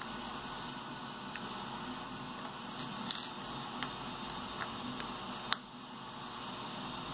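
A few light clicks and taps as a small metal tool works a screw into a plastic part, the sharpest click about five and a half seconds in, over a steady background hiss.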